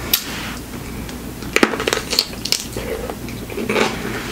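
Crunching as a whole dill pickle topped with whipped cream is bitten into and chewed. It makes a string of sharp crunches: one right at the start, a cluster about a second and a half in, more around two seconds, and a last few near the end.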